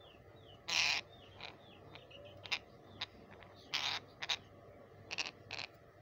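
A grey-headed pet parakeet giving a series of short, loud squawks, the longest about a second in and a quick cluster near the end, with faint falling chirps of other birds in the background.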